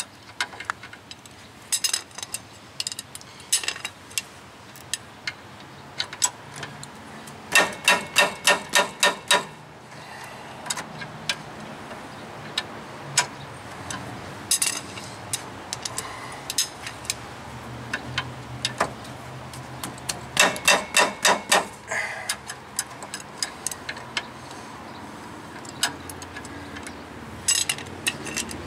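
Socket ratchet clicking in two quick runs of about six clicks a second, with single clicks between, as it is swung on a rusted brake caliper bolt that won't come free.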